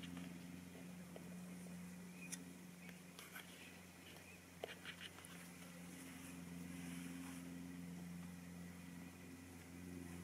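Faint steady low hum, with a few soft clicks about two, three and five seconds in.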